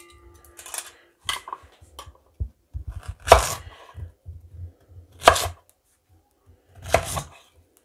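Kitchen knife cutting through a peeled pear and striking a wooden cutting board as the pear is quartered: a few light knocks at first, then three loud chops about two seconds apart.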